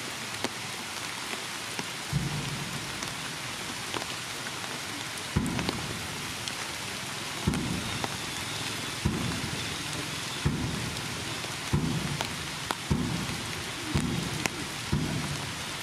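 Heavy rain falling steadily, a dense hiss of drops. From about two seconds in come repeated short, low thumps, growing more frequent toward the end.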